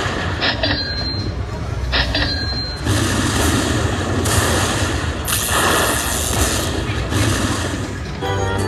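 Aristocrat Lightning Link slot machine bonus sound effects: crackling lightning and booms from the machine's speaker as the win meter counts up during free spins. Near the end a short musical jingle starts.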